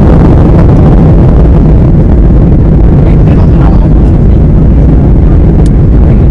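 Loud, steady cabin noise inside a Boeing 737-800 on approach: the rumble of its CFM56 turbofan engines mixed with the rush of air over the wing with its flaps extended, heaviest in the low end.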